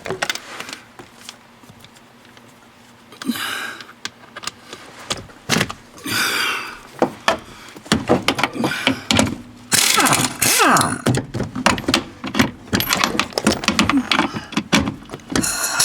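Short bursts from a pneumatic impact wrench with a 13 mm socket on the parking brake mounting bolts, followed by a run of metallic clicks, knocks and rattling from tools and parts being handled.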